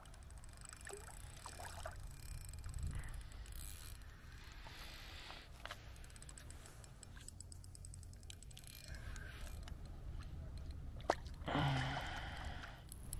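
Water lapping and sloshing gently around a small fishing boat, with scattered small knocks and clicks. Near the end comes a sharp click, then a brief louder rustle.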